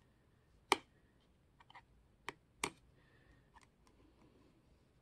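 Scattered small clicks and ticks of an X-Acto knife picking at and popping the binding threads in the fold of a book's signature, three of them sharper than the rest.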